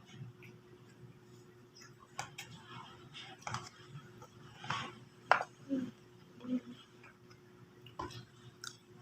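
Spoons and forks clinking against plates while eating: scattered sharp clinks, the loudest about five seconds in.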